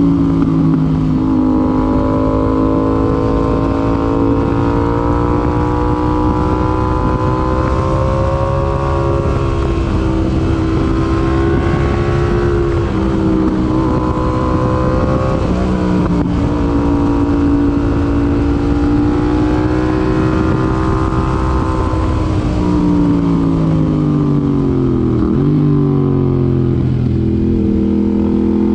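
Yamaha MT-07's 689 cc parallel-twin engine running through an IXIL IXRACE MK2 aftermarket exhaust while being ridden: the engine note rises and falls repeatedly as the rider accelerates, changes gear and rolls off, with a few sharper drops in pitch, the deepest near the end.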